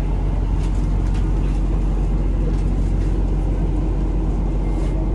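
Diesel railcar running, heard from inside the passenger car: a steady low engine rumble with faint rattles and clicks from the carriage.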